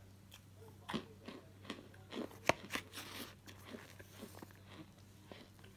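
Chunks of compressed powdered starch crunching and crumbling under fingers: a run of sharp, crisp crunches, loudest about two and a half seconds in, thinning to fainter crackles near the end.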